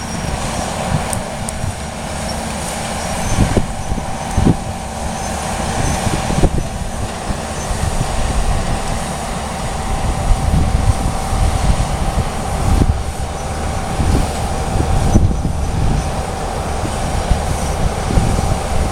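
Steady low rumble of a moving vehicle, with a thin steady whine above it and a few knocks and rattles.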